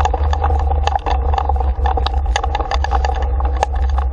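Dog scooter rolling fast on a snowy road behind huskies, heard from a camera riding along. There is a heavy wind-and-road rumble on the microphone, a steady two-note hum, and many small clicks and rattles.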